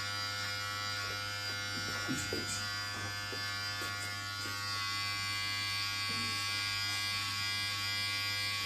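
Electric hair clippers running with a steady buzz as they cut short hair.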